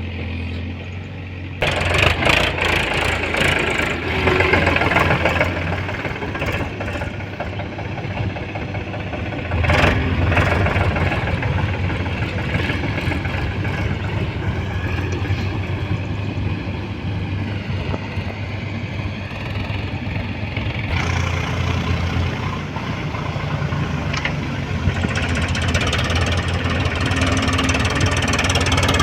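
Diesel engine of heavy farm and earthmoving machinery running steadily with a deep hum. It gets abruptly louder about two seconds in and again near ten seconds.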